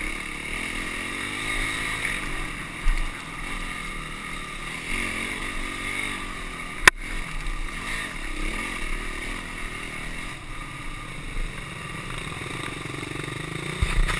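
Honda CRF250X dirt bike's 250cc four-stroke single-cylinder engine running on a trail ride, its revs rising and falling with the throttle, with one sharp knock about seven seconds in.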